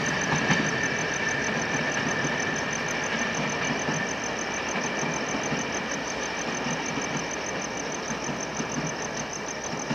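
Train running through the station and slowly moving away, its steady rumble fading gradually, with a fast, even high-pitched pulsing throughout.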